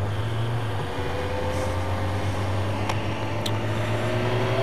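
Motorcycle engine running steadily while riding along a road, its pitch climbing slowly as the bike gently picks up speed, with wind and road noise.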